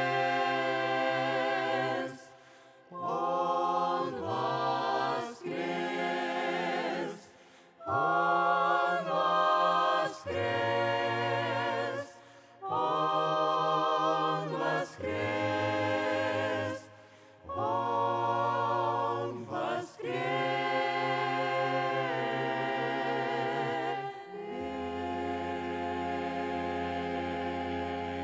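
Mixed men's and women's vocal ensemble singing a cappella through microphones: held chords with vibrato in phrases of about two seconds, with short breaks between them. About 24 seconds in, it settles on one long, lower final chord that ends the hymn.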